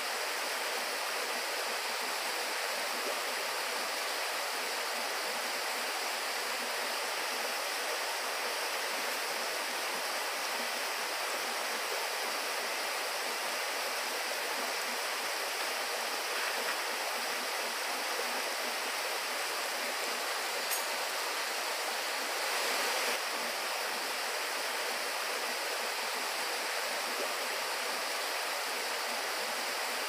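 Mountain stream water rushing steadily down over granite rock in a small cascade, an even hiss with a slight brief swell about three-quarters of the way through.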